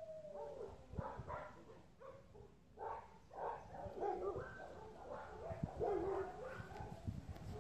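A dog vocalizing at a cat in a series of short, irregular calls, heaviest in the second half. At the start, a cat's falling meow trails off.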